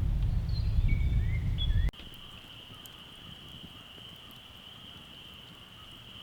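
Low rumbling noise with a few short bird chirps for about two seconds, then an abrupt change to a steady, high-pitched insect drone in a quiet outdoor scene, with a few faint ticks.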